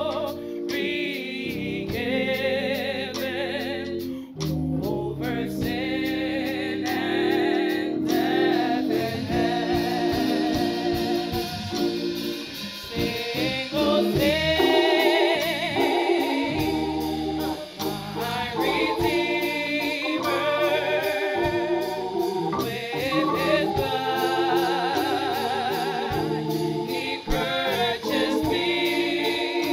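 Live gospel worship hymn: a woman sings the lead with vibrato into a microphone, over hand drums and a keyboard.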